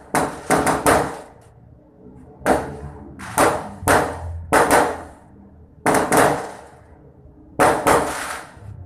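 Fireworks going off: a rapid, irregular series of over a dozen sharp bangs, often two or three close together, each trailing off in a rumbling echo.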